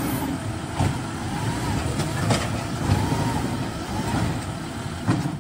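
Garbage truck with an automated cart arm working at the curb: its engine runs steadily, a faint whine rises and falls a few times, and there are several short clunks.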